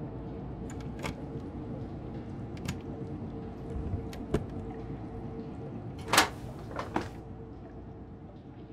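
A metal door's handle and latch clicking and rattling as someone works at it: a few sharp clicks, then a louder rattle about six seconds in and two smaller ones after it, over a steady low hum of room tone.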